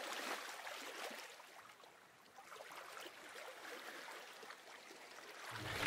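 Faint, even hiss with no distinct events in it.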